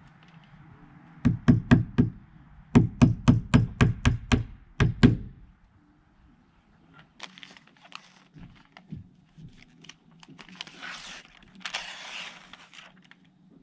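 Hammer nailing a new window into its opening: about a dozen blows, three spaced strikes then a fast steady run of nine or so. Later come lighter knocks and a stretch of crinkling as flashing tape is handled around the frame.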